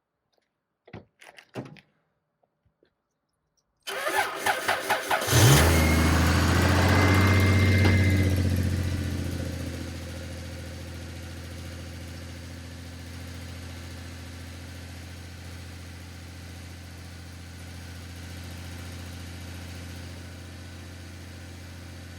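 Lexus GS300's 2JZ-GE straight-six cranking for about a second and a half after a few faint clicks, catching, flaring up to a high fast idle, then settling to a steady idle from about ten seconds in. The idle is a little rough, which the owner puts down to low petrol.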